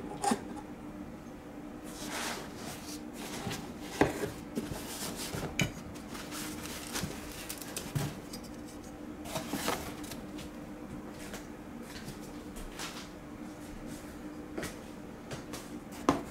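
Hands handling plastic model-airplane parts and foam packing in a cardboard box: scattered clicks, light knocks and rustles, with a sharper knock about four seconds in and another near the end, over a faint steady hum.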